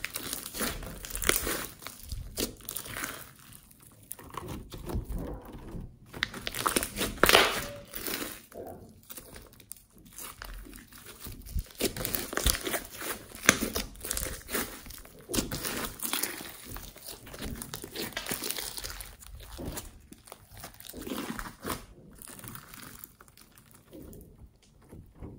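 Orange glitter slime with foam beads being squeezed and kneaded by hand. It gives dense, irregular crackling and squishing in uneven clusters as it is pressed and folded.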